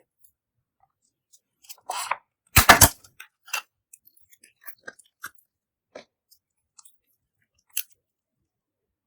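Clear slime being worked by hand: scattered wet clicks and crackles, with a loud burst of crunchy crackling about two and a half seconds in.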